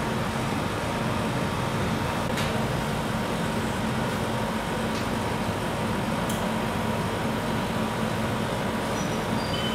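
Steady mechanical hum and running noise, with a few faint ticks and three brief high tones stepping down in pitch near the end.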